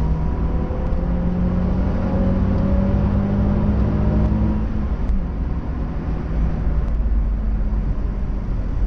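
Nissan 350Z's 3.5-litre V6 engine running at a steady, moderate pitch over a constant rush of road noise; the engine note eases off about five seconds in.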